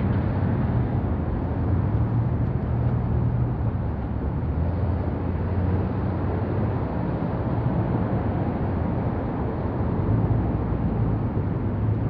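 Steady outdoor street ambience: a low, even rumble of passing traffic.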